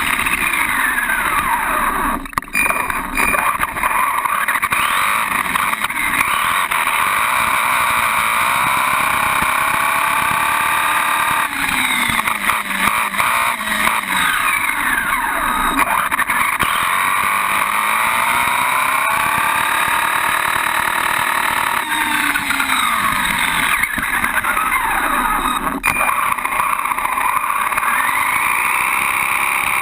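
Associated RC10 radio-controlled car's electric motor and drivetrain whining up close, the pitch rising and falling over and over as the throttle is worked.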